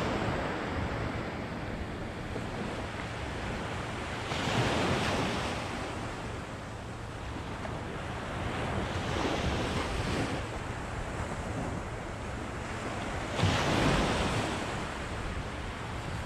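Small waves breaking and washing up the beach, three surges about four to five seconds apart, the last one starting sharply; wind buffets the microphone throughout.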